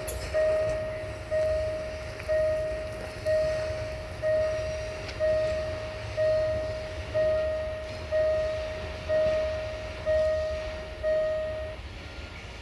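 Railway level crossing warning bell ringing, about one strike a second, each a single clear tone that fades before the next; it rings a dozen times and stops near the end, over a low rumble.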